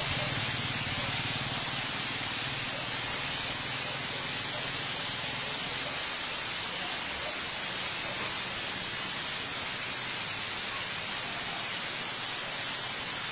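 Steady heavy hiss of ash-laden rain pouring down on trees and a road during a volcanic eruption. A low rumble under it fades away in the first second or two.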